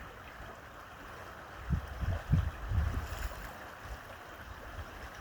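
Trout stream water running steadily. A few low thumps and rumbles come on the microphone about two to three seconds in.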